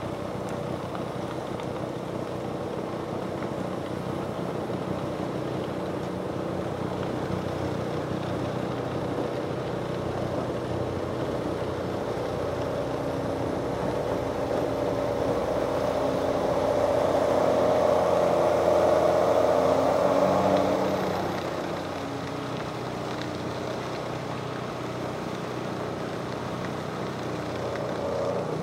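Tractor engine working hard while its front-mounted rotary snow blower churns and throws snow, a steady mechanical drone with a rushing haze. It swells louder for a few seconds about two-thirds of the way through, then drops back.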